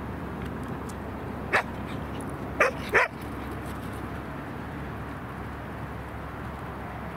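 A dog barking three times, short sharp barks, the last two close together.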